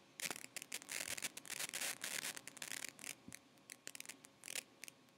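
Quiet, irregular scratching, rubbing and clicking: handling noise from the computer being worked on near the microphone.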